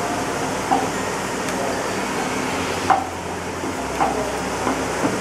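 Garlic frying in a little oil in a nonstick frying pan, a steady sizzle, while a spatula stirs it and knocks against the pan about four times.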